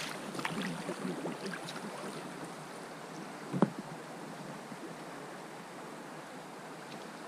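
River water rushing steadily over a riffle around a drifting boat. A single sharp knock a little past halfway.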